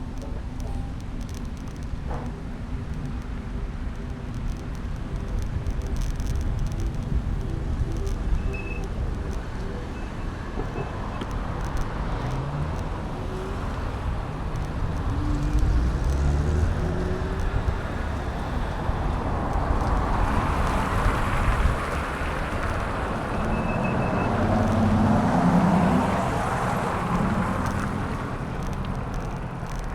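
Street traffic heard from a moving bicycle, with a steady low rumble of wind and road noise. Motor vehicles drive past, the loudest passing swelling up and fading in the second half.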